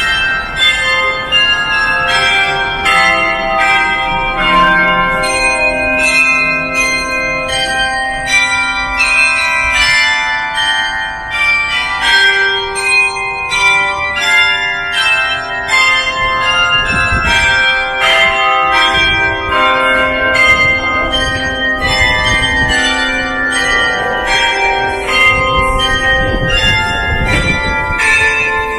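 Church bells ringing a quick, continuous run of strikes, many notes overlapping and ringing on. A low rumble comes and goes underneath in the second half.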